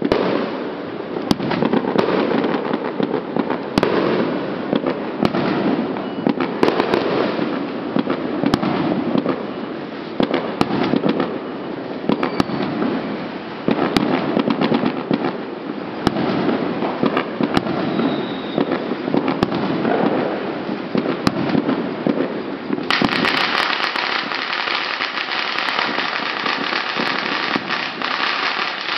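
Fireworks going off in a continuous barrage: a dense stream of crackling bangs with sharp single reports over a deep, rolling rumble. About 23 seconds in, the crackle turns brighter and thicker.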